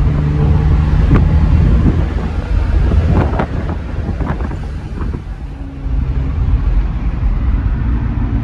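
1994 BMW E34 525i's inline-six engine running as the car drives, heard inside the cabin along with wind and road noise. A few clicks and knocks come in the middle, and the engine hum returns at a higher pitch about five and a half seconds in.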